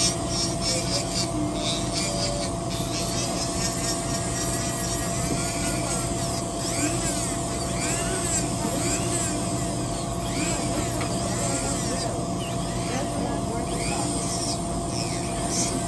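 Electric nail drill (e-file) running with a steady whine as it files acrylic nails, with repeated sweeping rasps as the bit works the nail surface; faint voices underneath.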